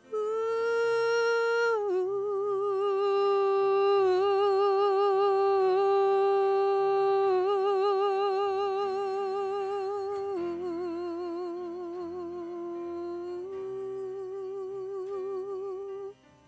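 A woman humming a slow wordless melody line: a series of long held notes with vibrato, over faint accompaniment. It stops shortly before the end.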